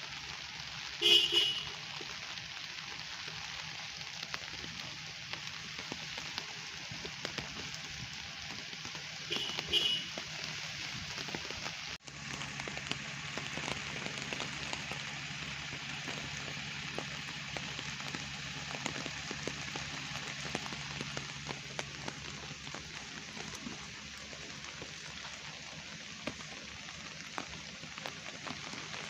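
Steady rain falling, with many small drop taps. Two brief pitched sounds cut through it, about a second in and again about nine seconds in.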